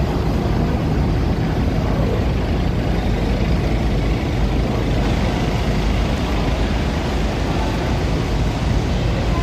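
Steady, loud, low rumble of engine machinery echoing through a ferry's enclosed vehicle deck.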